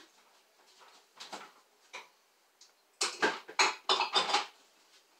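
Kitchen clatter of utensils and dishes: a few faint knocks, then a quick run of sharp clinks and knocks about three seconds in.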